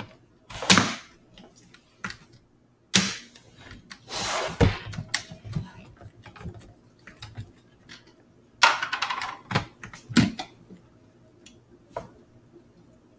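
Irregular clicks, knocks and clatter of containers and ingredients being handled on a kitchen counter close to the microphone, coming in three short spells.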